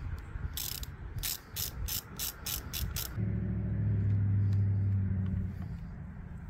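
Socket wrench ratcheting in a quick even run of about eight clicks as 12 mm bolts at the handlebar clamp of a Suzuki DR200SE are backed out after being broken loose. A low steady hum then takes over for a couple of seconds and is the loudest sound.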